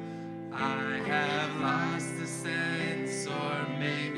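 Live song: electric guitar playing held chords, with a woman's singing voice coming in about half a second in, its long notes wavering.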